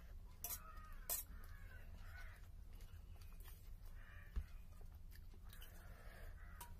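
Crows cawing several times in the background, with a couple of sharp clicks about a second in and a low steady hum underneath.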